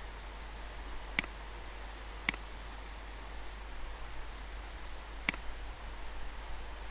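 Three sharp computer mouse clicks, spaced a second or more apart, over a steady low electrical hum.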